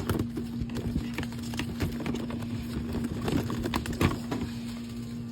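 Irregular light clicks and knocks of small plastic toiletry bottles and packaging being handled and set down, with sharper knocks at the start and about four seconds in, over a steady low hum.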